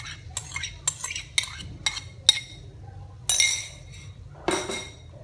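Utensils clinking against kitchenware: five sharp taps about twice a second, then two longer ringing clatters.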